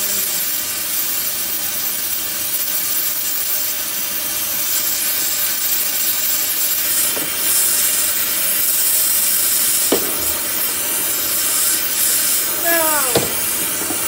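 Gas torch flame hissing steadily as it heats metal on the truck's rear axle. A few sharp pops come through, and a short falling squeal sounds near the end.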